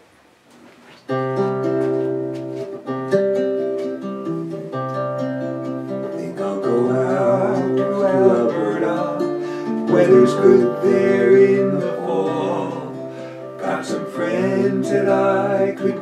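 Acoustic guitar starts playing abruptly about a second in, and a man's singing voice joins over it about six seconds in.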